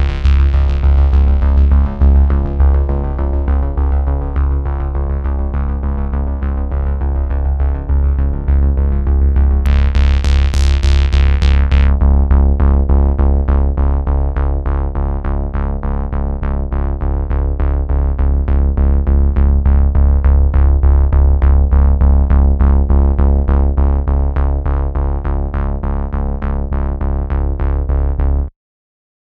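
Background electronic music with a fast, even pulse over a deep bass and a brief bright noise sweep about ten seconds in; it cuts off suddenly near the end.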